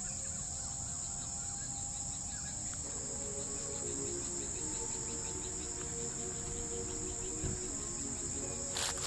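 Steady high-pitched chorus of insects singing at dusk. Faint, held lower tones join from about three seconds in, and a short sharp click comes near the end.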